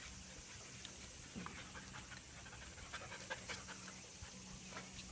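Dogs and puppies panting faintly, with scattered light ticks.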